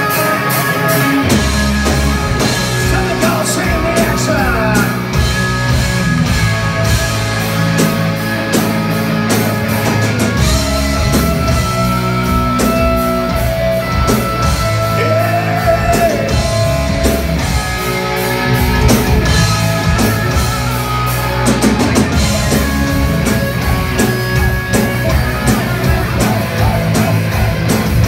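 Hard rock band playing live in a club: distorted electric guitars, bass and drum kit, with the full band coming in about a second in and driving on steadily.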